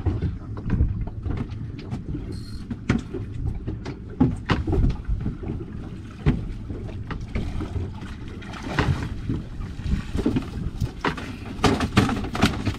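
Wind and water noise on an open boat at sea, with scattered knocks and thumps from handling on deck as a fish is netted and brought aboard.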